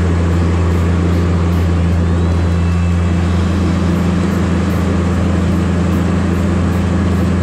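Diesel engine of a Tigercat 718E wheeled feller buncher running steadily under load as its big tires churn through deep flood water, with a continuous rush of splashing water.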